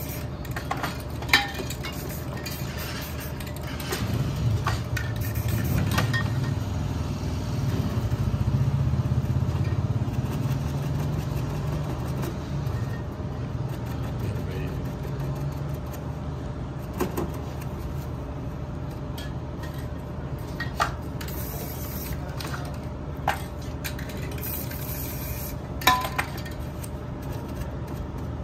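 Metal spray-paint cans clinking now and then as they are handled, a few sharp clicks, the loudest about a second in and near the end. Under them a steady low rumble swells for several seconds from about four seconds in.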